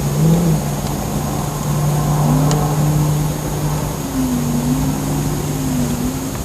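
Steady, engine-like drone from an unseen source. It holds one low tone, and a higher tone above it wavers slowly up and down in pitch. A faint tick sounds about two and a half seconds in.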